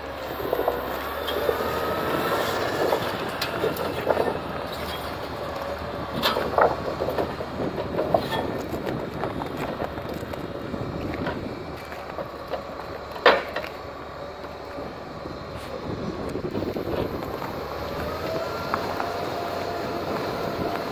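Timberpro 840B forwarder running steadily, with whining tones that slowly rise and fall in pitch and a few sharp knocks, the loudest about thirteen seconds in.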